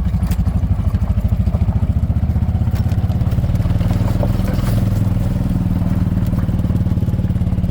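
Golf cart's small petrol engine running steadily as the cart drives along, with a fast, even firing pulse that settles to a steady pitch about halfway through.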